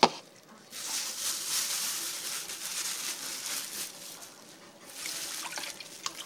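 A sharp knock at the start, then about three seconds of water splashing and trickling as a roasted poblano chile is rubbed in a tub of water to strip off its charred skin. A second, shorter stretch of splashing with small clicks comes near the end.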